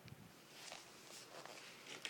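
Near silence: faint rustling and a few light ticks of handling noise.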